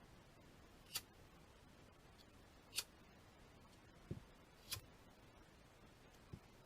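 Near silence broken by a few faint, sharp clicks and soft low knocks, spaced irregularly about a second or two apart.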